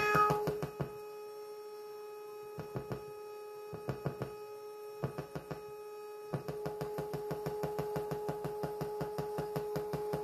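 Homemade MFOS Echo Rockit analog echo circuit sounding a steady electronic tone held at one pitch, overlaid with a stream of sharp clicks. The clicks thin to a few scattered ticks about a second in, then return as a regular pulse of about five a second past the middle as the knobs are turned.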